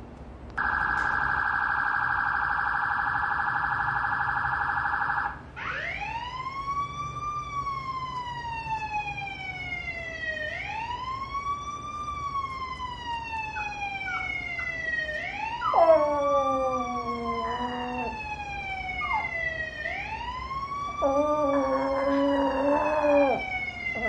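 An emergency-vehicle siren: first a loud, steady, fast-pulsing tone for about five seconds, then a wail that rises quickly and falls slowly, repeating about every five seconds. A Pomeranian howls along with the wail twice, about two-thirds of the way in and again near the end.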